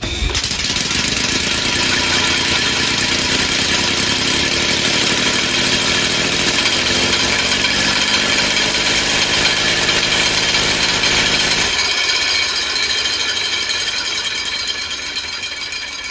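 Homemade three-cylinder compressed-air engine, freshly balanced and fed 150 PSI air wide open, starts suddenly and runs with a steadily rising pitch as it speeds up. About twelve seconds in, the low part of the sound drops away and it begins to fade.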